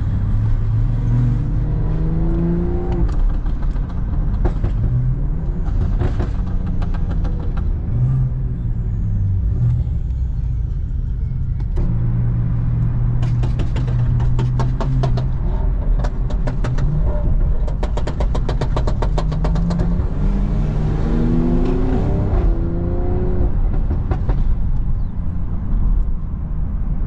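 A car engine revving hard, its pitch climbing in stepped rises near the start and again toward the end, with a steadier stretch in between. A rapid run of sharp pops sounds in the middle.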